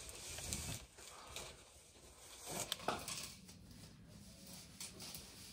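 Faint handling noises: light rustling with a few small clicks, two in quick succession a little under three seconds in.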